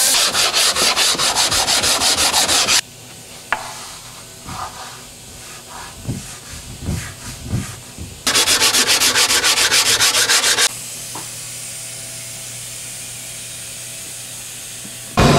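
Pneumatic die grinder with a small sanding disc sanding the edges of an MDF subwoofer box flush, in two loud spells of about three seconds each with a fast, even pulse. Between them come a few quiet knocks and handling sounds, and a steady, quieter hiss follows the second spell.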